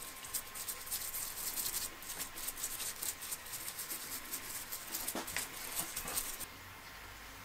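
Paintbrush scrubbing and dabbing oil into carved wood: a quick, uneven run of small scratchy bristle strokes that stops about six and a half seconds in.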